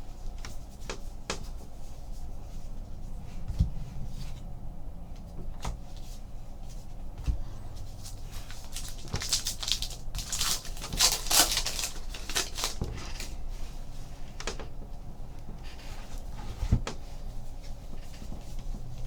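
Trading card packs and cards being handled on a table: scattered light taps and knocks, with a run of crackly rustling, like pack wrappers being torn open, from a little before the middle.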